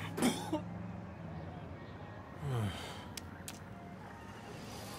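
Cartoon characters making short wordless vocal sounds: a brief snort-like burst at the start and a short falling cry about two and a half seconds in, followed by two small clicks. A low engine hum fades out within the first second.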